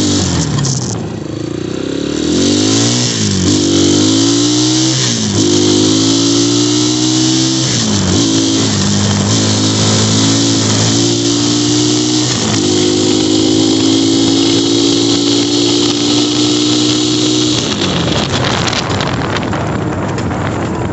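2019 XMOTOS 250cc dirt bike's single-cylinder four-stroke engine accelerating up through the gears. The pitch climbs and drops back at each of several shifts in the first twelve seconds, holds steady at cruising speed, then falls away as the throttle is eased near the end. Wind rushes over the microphone throughout.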